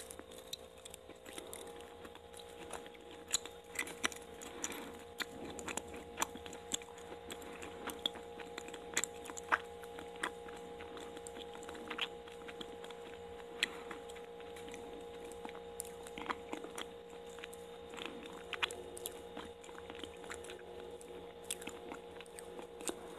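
Close-miked chewing of a soft, sticky daifuku mochi (sweet rice cake with a sweet paste filling), with many small wet mouth clicks and smacks over a faint steady hum.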